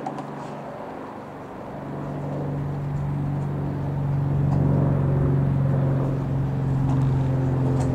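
Propeller drone of a Rockwell Commander 114's single six-cylinder Lycoming IO-540 piston engine as the plane passes overhead. It swells over the first few seconds, then holds steady.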